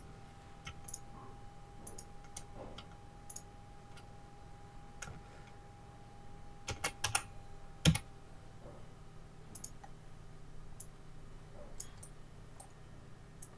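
Computer keyboard keys and mouse buttons clicking, scattered taps with a quick run of presses about seven seconds in and the loudest clack about eight seconds in.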